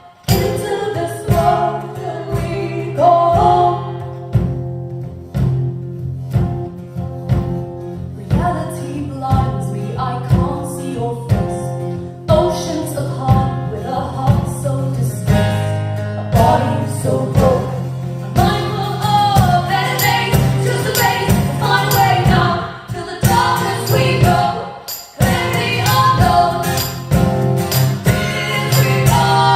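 A song performed live: singing over a steady rhythmic accompaniment with a sustained low note underneath.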